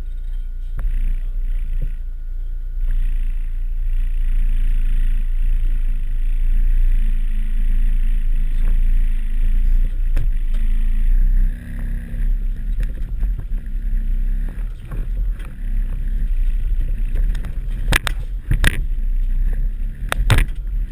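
1989 Volkswagen T3 Syncro van driving over a rutted off-road track, heard from inside the cabin: a steady low engine drone with body rattles, and a few sharp knocks near the end as the van jolts over bumps.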